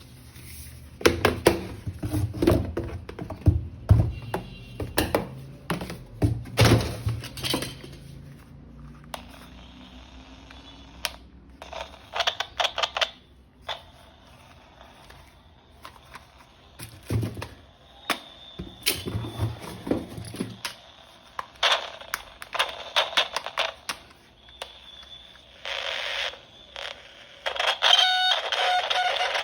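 Hard plastic knocks, clicks and clatters as a toy gun and its parts are handled, densest in the first eight seconds. In the second half a thin, high electronic tone sounds on and off, with a stronger beeping tone near the end.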